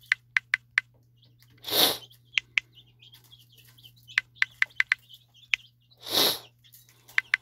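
Smartphone on-screen keyboard clicking as a word is typed: a short, sharp tick with each key tap, in quick irregular runs. Two louder short hissing noises come about two seconds in and again about six seconds in, over a faint steady hum.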